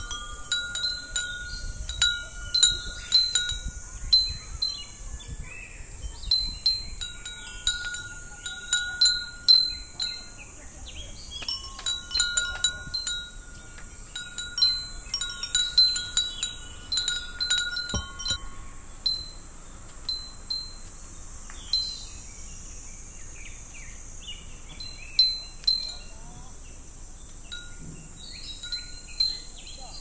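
Japanese glass wind chimes (fūrin) tinkling in clusters of short ringing notes, frequent for the first half and sparser later, over a steady high drone of cicadas.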